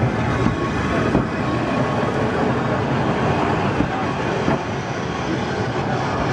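Manx Electric Railway electric tramcar rolling slowly past on the track: a steady rumble of wheels and running gear with a few light clicks.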